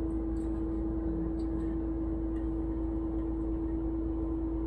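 A single steady mid-pitched tone, held unchanged, over a low rumble.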